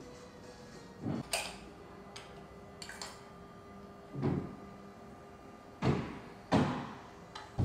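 Workpiece and jig handling on a woodworking CNC table: wooden frame pieces and hold-down clamps being set and locked, heard as a string of irregular knocks and clacks, the loudest two in the second half.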